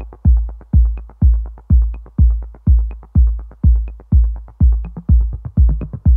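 Electronic dance music with a heavy kick drum about twice a second and a lighter ticking beat between the kicks.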